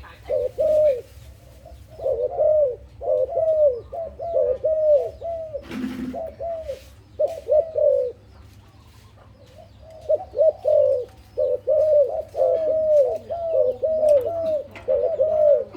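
Zebra dove cooing: runs of short, rapid, falling coo notes that pause about eight seconds in and then start again. A single knock sounds about six seconds in.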